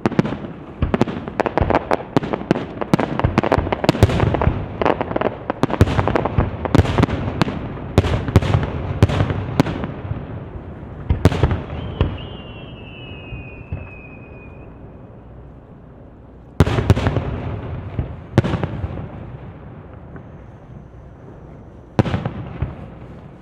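Aerial firework shells bursting in a rapid barrage of bangs and crackle for about the first ten seconds, then a thin falling whistle, then three single heavy booms with long echoing tails in the second half.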